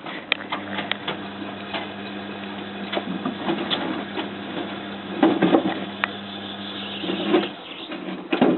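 Tricity Bendix AW440 washing machine running on a 95° boilwash: a steady motor hum with scattered knocks and clicks, the hum stopping about seven seconds in.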